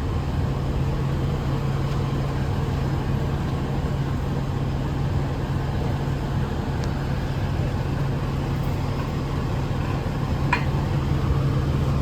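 Fire engine running steadily, a constant low engine drone, with one short sharp click about ten and a half seconds in.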